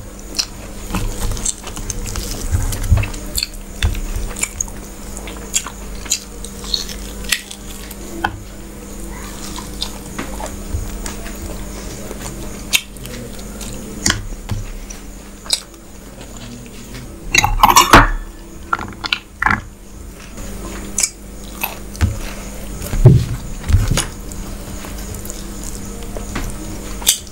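Fingers mixing and scooping rice and curry on a stainless steel plate: repeated clicks and scrapes against the metal, with wet chewing between them. A louder burst of clatter comes about eighteen seconds in.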